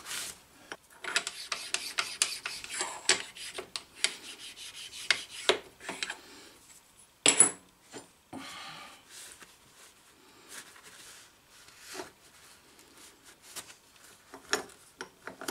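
Shop rag rubbing and wiping over the sliding surfaces of an Atlas 10F lathe tailstock, a run of short, irregular scrubbing strokes that wipes off the grit and oil left from stoning. About seven seconds in there is one sharp knock as the tailstock's upper casting is moved on its base, then quieter rubbing and a few light clicks.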